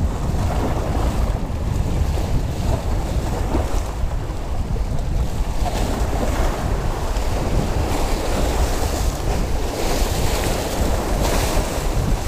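Small waves washing and splashing against jetty boulders, surging louder a few times, with wind buffeting the microphone in a steady low rumble.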